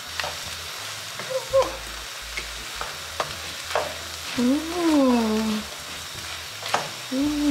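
Wooden spatula stirring a chunky vegetable-and-bean chili in a frying pan, the food sizzling as it is turned, with scattered taps and scrapes of the spatula on the pan. About four and a half seconds in, a voice makes one short note that rises and then falls.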